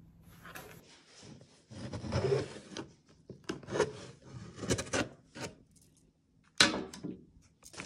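Cardboard shipping box scraping and rubbing as it is handled, then one short, sharp rasp near the end as the packing tape is slit with a utility knife.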